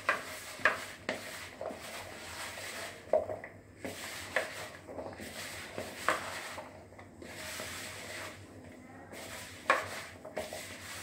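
Cauliflower florets being tossed and rubbed by hand in a spice and cornflour coating in a plastic bowl: irregular rubbing, with a few short sharp clicks as the florets and fingers knock against the bowl.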